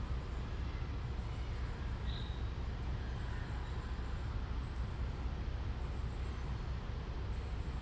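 Steady low background rumble with no distinct events, and a brief faint high chirp about two seconds in; the snake swallowing its prey makes no audible sound.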